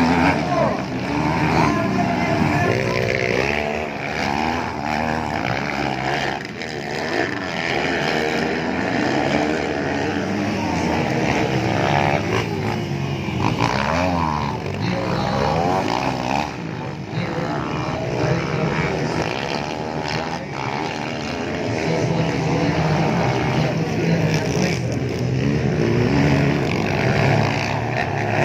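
Several motocross bike engines racing together, their pitch repeatedly rising and falling as riders work the throttle and shift.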